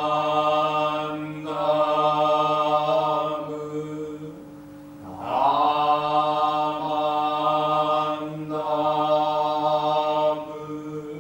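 Jōdō Shinshū Buddhist liturgical chanting: long, drawn-out sung phrases on held notes. The chanting dips briefly about four seconds in, then resumes and fades near the end.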